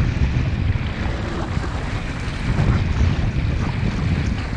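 Wind buffeting the microphone over the rush and splash of water along the hull of a small wooden sailboat under way in a breeze. It is a steady low rumble of wind with a hiss of water, and no single event stands out.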